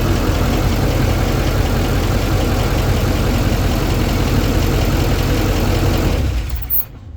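LML Duramax 6.6 L V8 turbodiesel idling steadily with its diesel clatter, the engine run so the A/C system can take its refrigerant charge. Near the end the sound drops away sharply.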